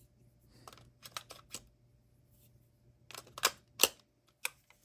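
Sharp plastic clicks and knocks from a cheap electric lock-pick gun's battery compartment as AA batteries are pressed against very tight contacts and the back cover is pushed toward shut, the two loudest clicks coming close together about three and a half seconds in.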